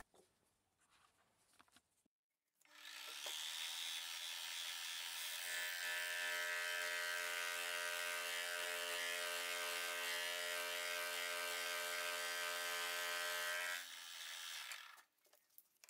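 Small Optimum milling machine running with a steady hum that starts suddenly about three seconds in. From about five seconds in, its carbide-insert dovetail cutter takes a slow, light pass in the metal tool holder blank, adding a rasping cutting noise that stops about two seconds before the motor.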